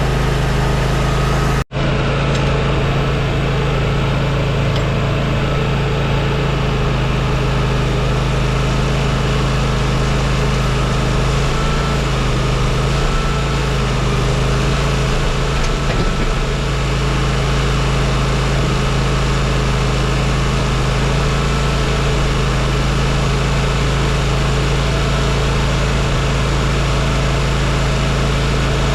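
Timberking 1600 band sawmill running steadily under engine power while cutting oak beams, the sound breaking off for an instant about two seconds in.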